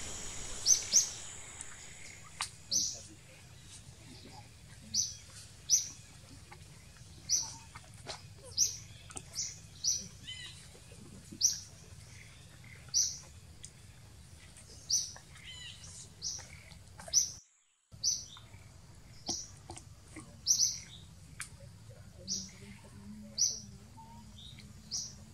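Short, high-pitched animal chirps repeating about every one to two seconds over a faint low background hum, with a brief dropout to silence about two-thirds of the way through.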